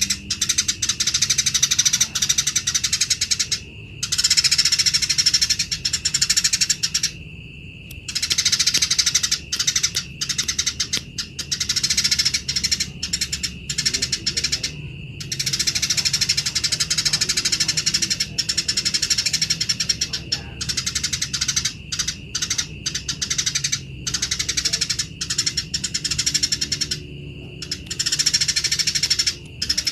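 Eurasian tree sparrows chattering harshly and rapidly in a fighting bout, in long unbroken stretches with a few short pauses.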